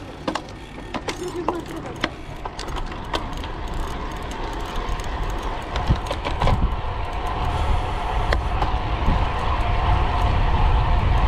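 Road bike getting under way: a few sharp clicks in the first seconds, then wind and rolling noise on the rider's camera growing steadily louder as the bike picks up speed.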